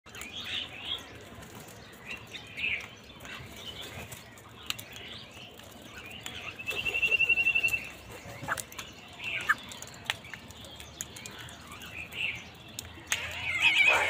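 A flock of house crows feeding, with scattered short calls and sharp taps as beaks peck at grain and a plastic bowl. About seven seconds in comes a rapid rattling trill lasting about a second, and near the end loud cawing starts.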